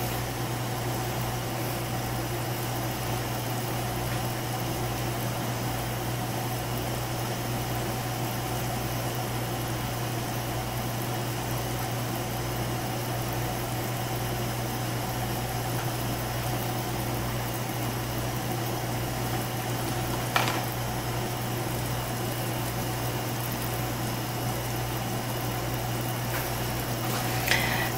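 Salted water at a rolling boil in a stainless steel saucepan on a gas burner, bubbling steadily over a steady low hum. There is one short click about two-thirds of the way through.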